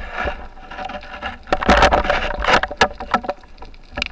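Underwater knocking, clicking and scraping as a spearfisherman's gloved hand and speargun work against the rocky seabed to pull out an octopus, heard through the camera's underwater housing. A run of sharp knocks comes between about one and a half and three seconds in.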